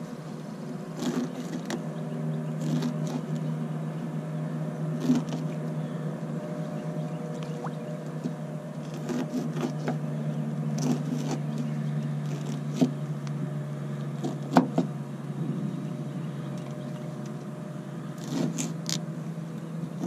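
Bait knife cutting skipjack herring into chunks on a board, giving scattered knocks and taps as the blade goes through the fish and hits the board. A steady low hum runs under it.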